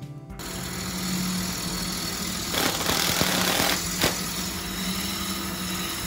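Wood lathe running with a steady motor hum while a gouge cuts a spinning wooden bowl blank. The cutting noise grows louder for about a second midway, with a sharp click near four seconds in.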